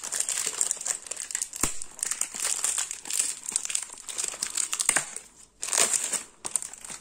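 Plastic wrapping being torn and peeled off a product box: continuous crinkling and crackling with many small sharp crackles, easing briefly about five and a half seconds in before picking up again.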